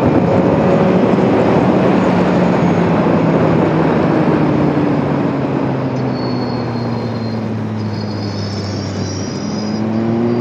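Motorcycle engine under way, its pitch falling slowly for most of the stretch as the bike decelerates, then rising near the end as the throttle is rolled on again, over heavy wind noise.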